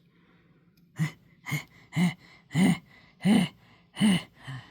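A person's voice making short, breathy gasps again and again, starting about a second in and coming about once every two-thirds of a second.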